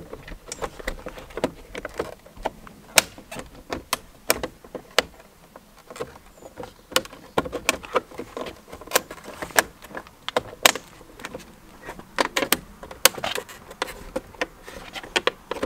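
Hard plastic clicking and tapping as a Mercedes-AMG C63's gloss-black side-mirror cap is worked and pressed onto the mirror housing to seat its clips. Many sharp clicks come irregularly, with short gaps between them.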